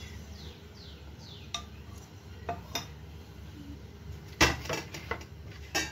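Kitchen utensils and dishes clinking and knocking: a few light taps, then the loudest knock about four and a half seconds in, followed by several quick clatters.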